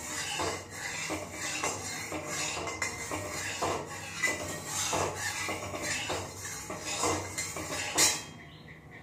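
Metal spatula scraping and stirring around an empty metal kadai (wok), spreading a thin film of oil as it heats, in repeated strokes. A louder clank near the end as the spatula knocks against the pan.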